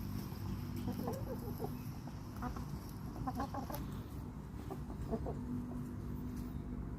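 A flock of chickens clucking, with scattered short calls coming in clusters, over a steady low hum.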